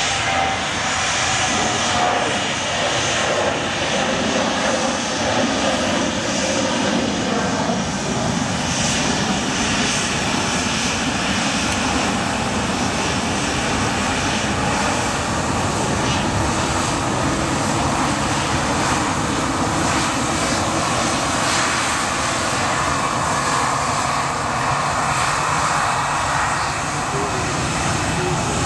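Jet engines of a KLM Boeing 737 (CFM56 turbofans) running at taxi power as the airliner rolls past, a steady, unbroken engine noise.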